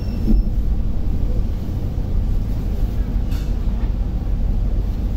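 A harbour ferry's engines running with a steady low rumble, heard from inside the cabin as the boat moves slowly alongside the pier while berthing.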